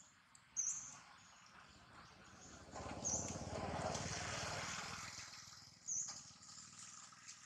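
Outdoor ambience with three short, high bird chirps spread through it. A louder, rising-and-fading rumble swells up about three seconds in and dies away over roughly three seconds.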